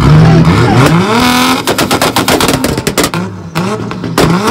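Tuned car engine revved up onto a two-step launch limiter: the revs climb for about a second and a half, then the exhaust fires a rapid string of sharp pops and bangs, with short rev blips near the end.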